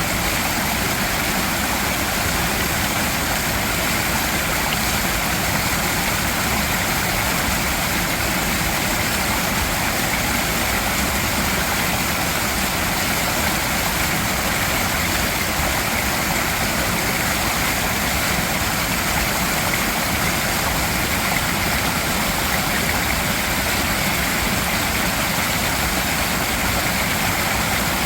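Mountain stream rushing steadily over rocks, a constant even rush of water with no breaks.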